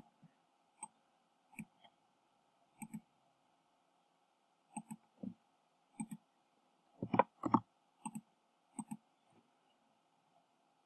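Computer mouse button clicks, about a dozen short sharp ones spaced irregularly, some in quick pairs, with a louder pair about seven seconds in, over a faint steady hum.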